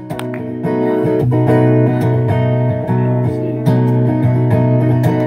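Acoustic guitar strummed, chords ringing under a run of repeated strokes, with no singing.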